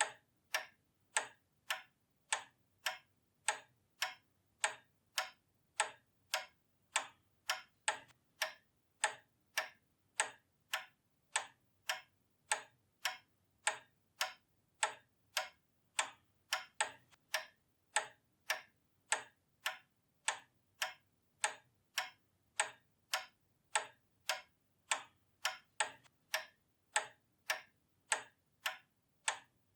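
Pendulum clock ticking steadily, even sharp ticks at about two a second.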